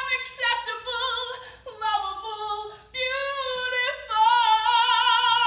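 A woman singing solo in phrases, ending on a long held note with vibrato.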